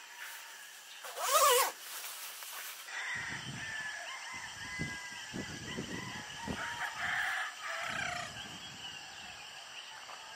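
A rooster crows once, loudly, about a second in, over faint steady high background tones. From about three seconds in an uneven low rumble runs underneath.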